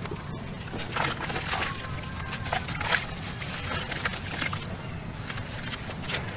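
Wet sand-cement chunks squeezed and crumbled by hand in a tub of water: sloshing water with irregular splashes and gritty crumbs dropping back in.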